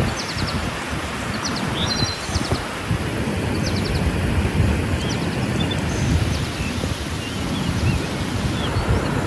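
Outdoor ambience: wind buffeting the microphone as a steady low rumbling hiss, with faint short high chirps scattered through it.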